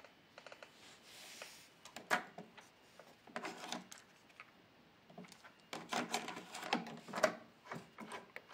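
Mechanical clicks and clunks of a JVC TD-V1010 cassette deck's controls and tape transport being operated, in small clusters with the busiest stretch about six to seven seconds in.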